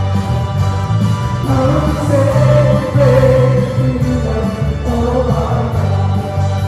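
Live worship band playing: a bass guitar and keyboard under several voices singing a praise song together, with long held notes.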